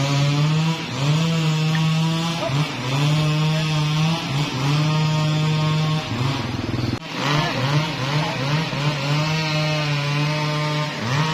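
Engine-driven sawmill saw running at high revs as it cuts wood. Its pitch sags and recovers every second or two as it bogs under load, with a deeper dip about seven seconds in.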